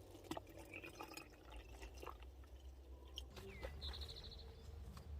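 Faint liquid pouring and dripping with small plastic clicks and handling noises as a powdered raspberry drink mix is added to water in a plastic bottle. There is a short quick rattle near the end.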